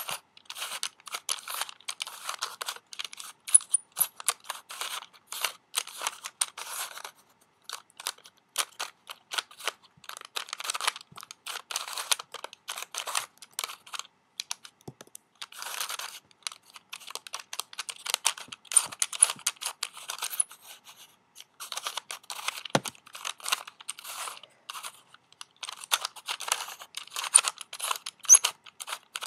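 Pieces of a Turnstile twisty puzzle clicking and rattling as they are turned by hand, in quick runs of many small clicks with brief pauses.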